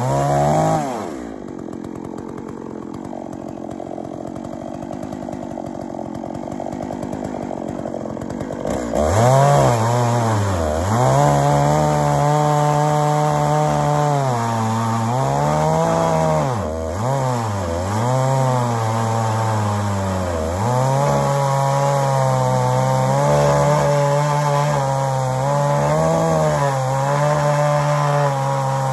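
Holzfforma G660 two-stroke chainsaw in a chainsaw mill ripping a red oak log lengthwise into slabs. The engine drops off to a lower, quieter run about a second in, then revs back to full throttle about nine seconds in and holds a high steady note in the cut, sagging briefly in pitch several times as the wood loads the chain.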